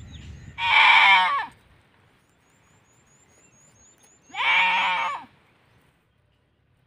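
A goat bleating twice, each call about a second long, with a wavering quaver.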